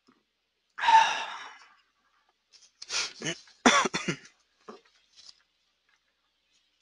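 A person coughing: one sharp, loud burst about a second in that fades out, then a quick run of several coughs about three to four seconds in.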